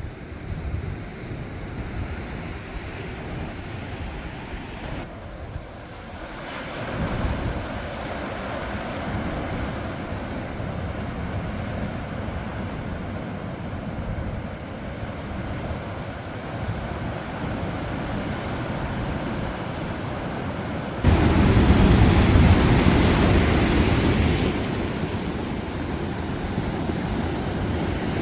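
Ocean waves breaking and washing up on the shore, with wind on the microphone. About two-thirds of the way through, the sound jumps suddenly louder and deeper, then eases back a few seconds later.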